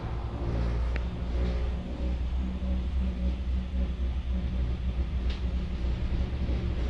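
Cable car gondola running along its cable, heard from inside the cabin: a steady low rumble and hum, with a light click about a second in and another near the end.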